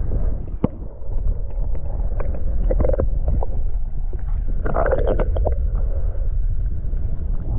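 Muffled low rumble of flowing stream water heard by a camera held underwater, with scattered small clicks and knocks, like pebbles and the housing being bumped in the current.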